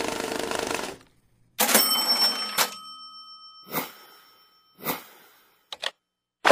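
Motion-graphics sound effects: a rattle for about a second, then a bright bell-like ring that lingers for about two seconds, followed by two short whooshes and a couple of quick clicks near the end.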